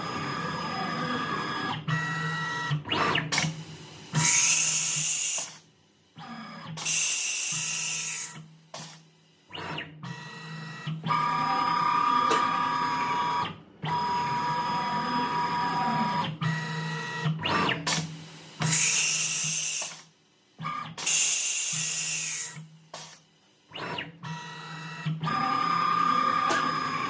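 Automatic tool change cycles on a DIY CNC router with an HSD ES950 spindle, run twice: stepper-driven axes humming and whining as they move, broken by two pairs of loud compressed-air hisses from the spindle's pneumatic tool release, one pair a few seconds in and the other about two-thirds through.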